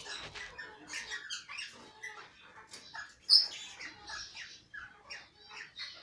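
Parrots in an aviary chirping and calling: a scatter of short high calls, with one loud sharp call about three seconds in.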